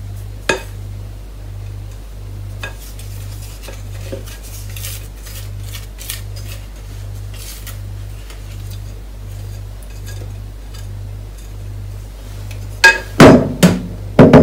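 Wooden spatula scraping and tapping against a stainless steel mixing bowl as coffee grounds and oil are scraped out, making light scattered clinks. A loud clatter comes near the end as the metal bowl is set down on the worktop. A low hum pulses steadily underneath.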